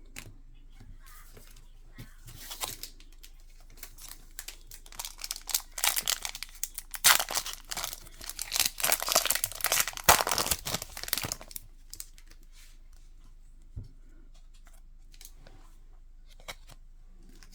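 Plastic or foil wrapper of a trading-card pack being torn open and crinkled: a dense crackle of quick clicks that builds up over the first few seconds, is loudest for several seconds in the middle and then stops. Afterwards there is one soft knock.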